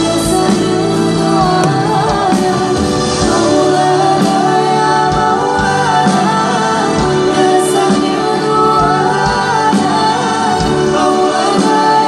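Live sholawat pop band playing through a concert PA: a woman sings the lead melody over keyboards and a drum beat. Recorded from within the crowd.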